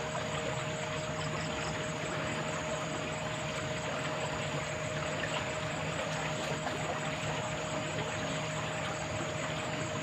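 Steady rush of flowing water, even and unbroken, with a faint steady hum underneath.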